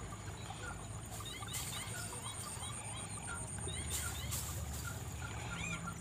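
Open-field ambience of scattered short bird chirps over a steady high-pitched insect drone, with brief rushes of wind noise. Near the end a bird starts a run of quick, evenly repeated notes.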